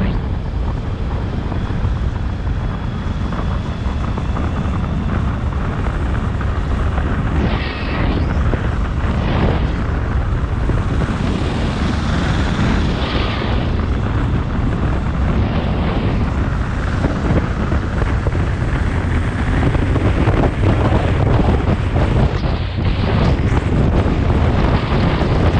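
Motorcycle riding at road speed: steady wind rushing over the microphone mixed with the engine's drone and tyre noise.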